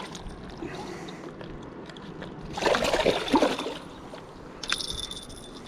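Shallow water splashing and trickling around rocks at the water's edge, with a louder splash lasting about a second midway. A sharp click comes near the end.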